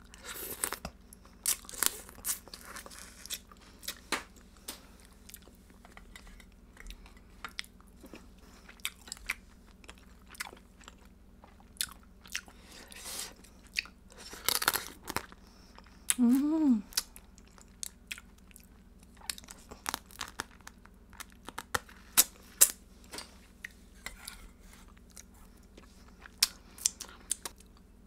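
Close-miked eating of spicy seasoned cockle (blood clam) meat: wet chewing and mouth smacks with scattered sharp clicks. About sixteen seconds in comes a brief hummed "mm".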